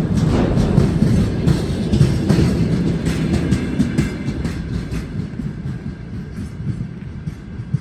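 Freight train wagons, mostly tank cars, rolling slowly past, with a low rumble and wheels clacking over rail joints. The sound fades over the last few seconds.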